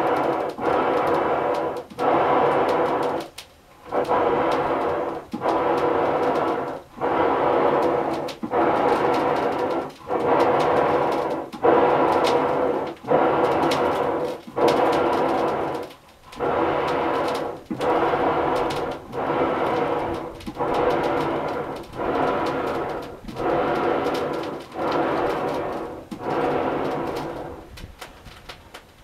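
Hand-pumped wooden Chinese-style box bellows (piston bellows) worked steadily back and forth, each stroke a rushing noise with a short break at each reversal, about one stroke every second and a half, blowing air into a charcoal forge fire. The pumping stops about a second before the end.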